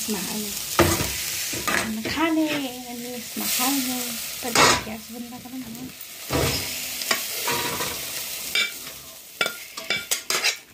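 Dried sidra fish frying and sizzling in a hot wok while a metal spoon stirs and scoops it out onto a steel plate, with sharp clinks of the spoon against the metal.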